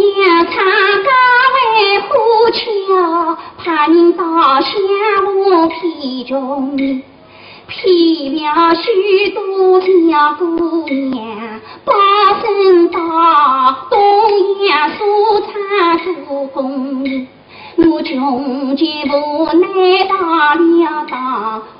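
A woman singing a Shanghai opera (Huju) passage in the fuzi ban style, in wavering sung phrases of a few seconds each with brief pauses between them, over light instrumental accompaniment.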